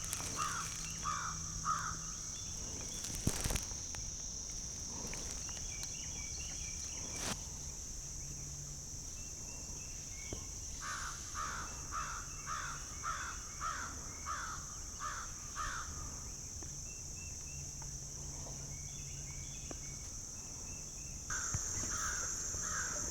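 A bird calling in runs of several short calls, about two a second, three times over, above a steady high-pitched chorus of insects.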